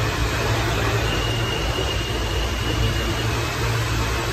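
R160 subway train running into an underground station platform as it slows: a loud, steady rumble of wheels and motors, with a faint high tone for about two seconds, starting a second in.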